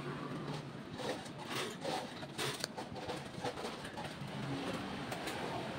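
Background noise of a busy fast-food counter: a steady hum with a few short rustles and clatters of handling, bunched about one and a half to two and a half seconds in.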